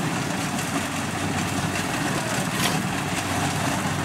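Kubota DC-70 Plus combine harvester's diesel engine running steadily under load while the machine cuts and threshes rice.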